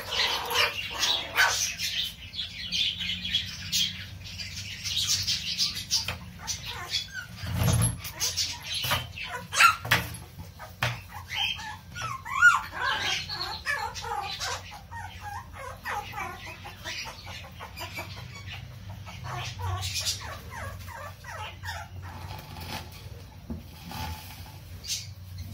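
Pomeranian puppies playing, with scattered short, high-pitched squeaks and yips and occasional light clicks.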